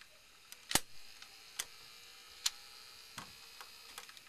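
Hard plastic parts of a Thundersaurus Megazord action figure clicking as it is handled: four sharp separate clicks about a second apart, the first the loudest, over a faint steady hum.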